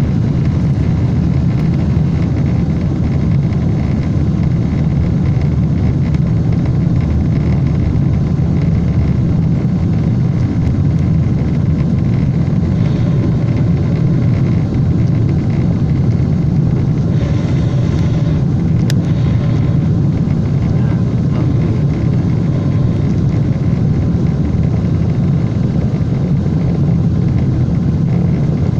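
Boeing 747 cabin noise in flight: a steady low rumble of jet engines and rushing air that holds an even level throughout.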